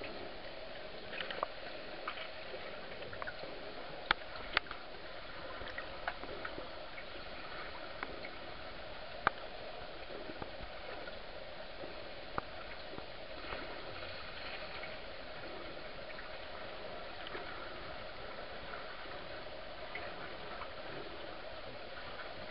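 Underwater sea noise heard by a submerged camera: a steady muffled water hiss with scattered sharp clicks and pops, the loudest a few seconds in.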